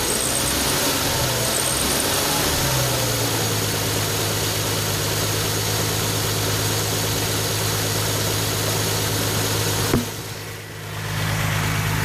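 Nissan 370Z Nismo's 3.7-litre V6 idling, a little uneven for the first few seconds and then steady. About ten seconds in there is a click and the sound drops for about a second before the idle comes back.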